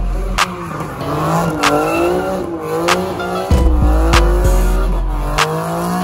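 A car doing donuts: the engine revs up and down while the tyres squeal. Under it runs music with a deep bass and a regular beat.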